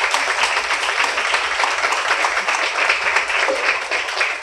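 An audience applauding steadily, dense clapping that eases slightly near the end.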